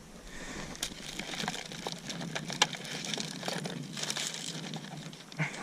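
Crinkling and rustling of fishing tackle being handled, with scattered small clicks, as lures are changed.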